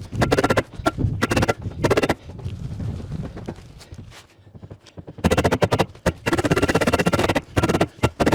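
Background music with a busy percussive beat.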